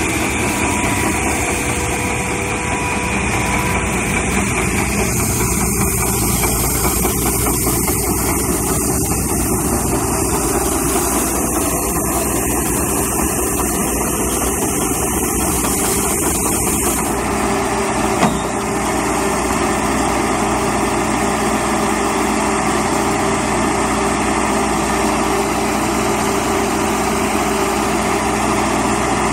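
Tennant 830-II street sweeper running as it drives and sweeps, its side broom brushing the pavement. The machine noise is steady, with an added high hiss for about ten seconds in the middle and a single click near the end.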